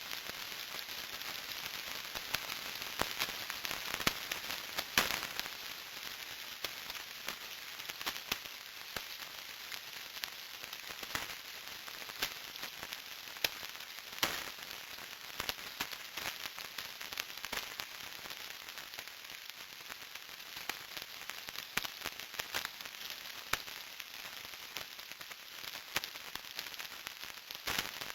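Radio static: a steady hiss with frequent irregular crackling pops, as from a radio's interference and distortion.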